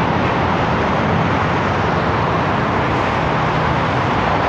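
Loud, steady road traffic noise of cars and motorbikes passing on a busy multi-lane road.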